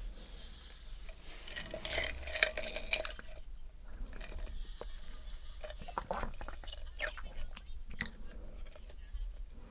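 Soft, irregular close-miked clicks and crackles, with faint voice-like sound a couple of seconds in.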